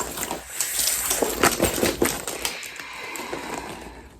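Rustling and crinkling of handled shopping packaging, a dense run of small clicks and crackles that fades out near the end.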